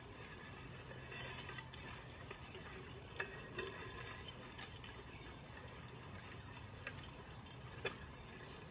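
A weight sled loaded with 300 lb dragged over wet pavement, heard faintly as an irregular gritty rattling and clicking, with a couple of sharper clicks.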